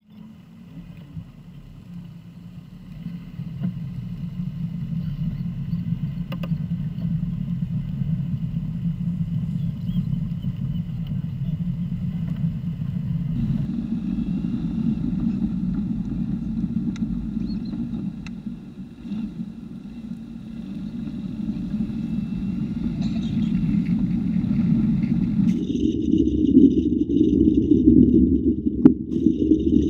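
Car driving: steady engine and road noise that changes character about halfway through, dips briefly, then grows louder near the end.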